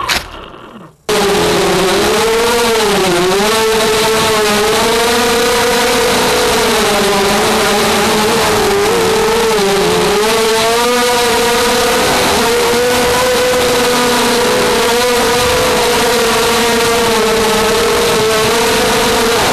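Four brushless motors and propellers of a QAV250 racing quadcopter whining, heard from its onboard camera. Near the start the sound falls away almost to nothing for about a second as the throttle is cut for a flip. It then comes back as a steady high whine that wavers up and down in pitch as the throttle changes.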